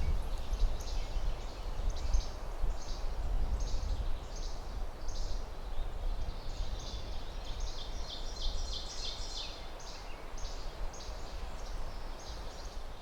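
Wind buffeting the microphone, with a small bird calling in short, high chirps repeated about twice a second, coming thicker a little past the middle.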